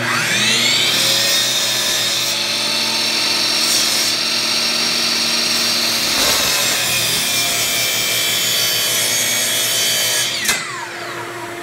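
RIDGID miter saw motor spinning up with a rising whine, running at a steady high whine while the blade cuts through a wooden board for a 45-degree miter, then winding down with a falling whine near the end.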